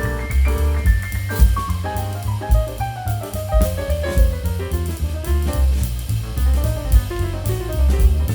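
Background music: upbeat jazz-style tune with drum kit, bass and melodic instruments keeping a steady beat.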